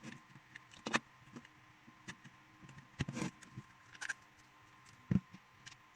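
Plastic housing of a Dongcheng 20V power-tool battery pack being handled as its top cover is fitted: scattered light clicks and knocks, with a heavier knock near the end.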